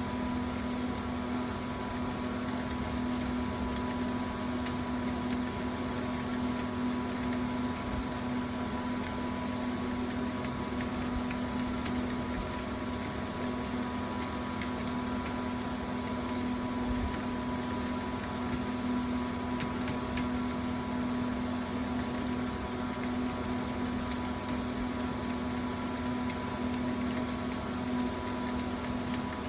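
Steady machine hum, even and unchanging, with one strong low tone and a few fainter higher tones over a hiss.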